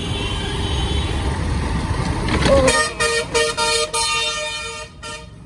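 Low rumble of riding through traffic, then a vehicle horn honking in several short toots from about halfway in.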